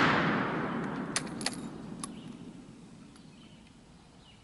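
The rolling echo of a Mauser 1871 (Gewehr 71) rifle shot, an 11mm Mauser black-powder round, dying away over about four seconds. A few sharp clicks come between one and two seconds in.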